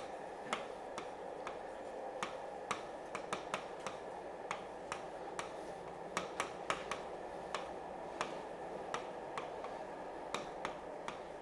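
Stylus tip tapping and clicking on a pen-input screen as words are handwritten: irregular sharp clicks, a few a second, over a steady hiss.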